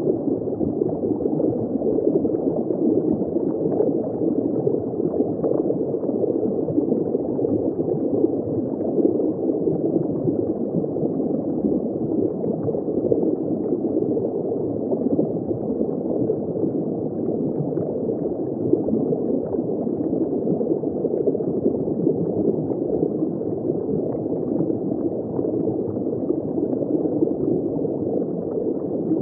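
Steady, muffled rush of water heard through a submerged underwater camera, dull and low with nothing bright in it, with faint scattered ticks.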